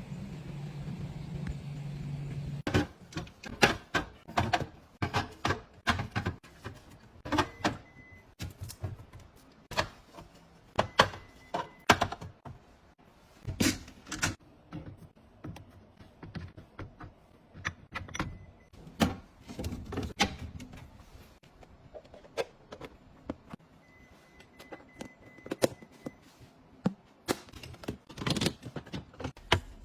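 Household items being picked up, set down and arranged: a long run of irregular clicks, taps and knocks. It starts after a low hum stops about two and a half seconds in.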